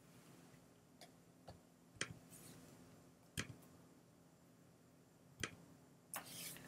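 Single sharp clicks of a computer pointing device, five of them spaced about half a second to two seconds apart, then a brief rustle near the end.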